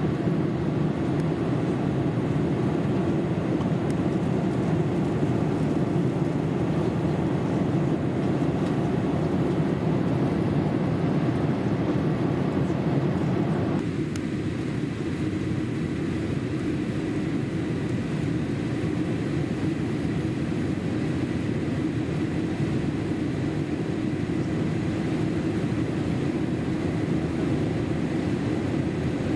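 Steady cabin noise of a Boeing 787 airliner in flight: a constant low rush of airflow and engines. About halfway through it turns slightly duller and quieter.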